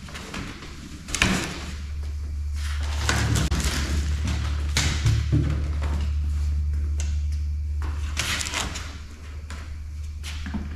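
A heavy plastic-cased portable power station and its expansion battery being handled on a wooden workbench: a low rumble as the wheeled power station is moved across the tabletop, with several knocks and bumps as the units are set down, and a knock near the end as the expansion battery is stacked on top.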